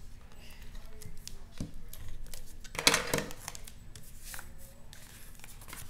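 Cardstock being handled and slid across a craft mat: paper rustling and light taps, with the loudest rustle about three seconds in.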